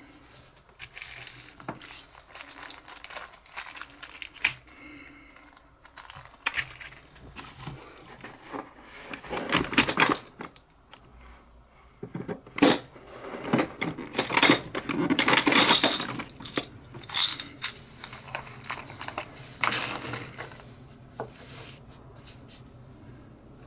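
Small metal tools and parts being handled and worked on a bench: irregular clicks, taps and scraping, busiest and loudest through the middle.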